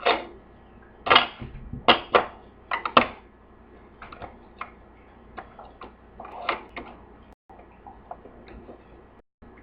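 Small plastic toy figures clicking and tapping against the plastic shelves of a toy fridge playset as they are set in place. Sharp clicks come quickly in the first three seconds, then lighter, sparser taps follow.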